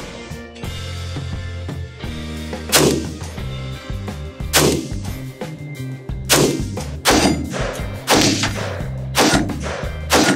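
Single shots from an LWRC SIX8-A5 Razorback II semi-automatic rifle in 6.8 SPC, about seven sharp reports at an uneven pace of one every one to two seconds, over background music.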